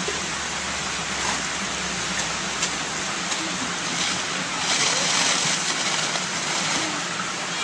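Steady rush of water splashing into the concrete fish ponds. A plastic bag rustles briefly about five seconds in.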